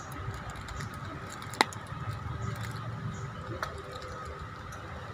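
Outdoor street background: a steady low rumble with a faint steady hum, and one sharp click about a second and a half in, then a fainter click later.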